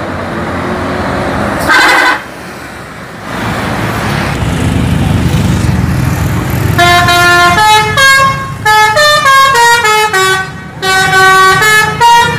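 Bus engine and road noise with a short horn blast about two seconds in. From about seven seconds an Indonesian bus's multi-tone musical 'telolet' horn plays a quick tune of stepped notes, loud and repeated.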